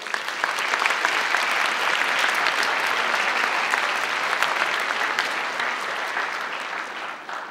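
Audience applauding: many hands clapping together, starting at once and thinning out toward the end.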